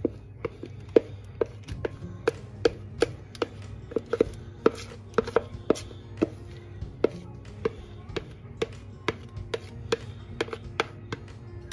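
A spoon knocking repeatedly against a plastic measuring jug while scraping cake batter out into a lined tin: sharp, uneven taps about two to three a second. Faint background music underneath.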